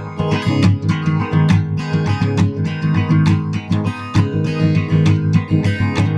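Acoustic guitar strummed in a steady rhythm, chords ringing with no singing.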